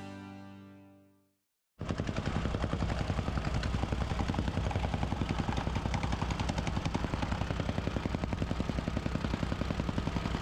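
Music fades out, and after a brief silence a powered construction machine starts a rapid, steady, even pounding, the kind of repeated hammering heard when old concrete is being broken out or the ground compacted.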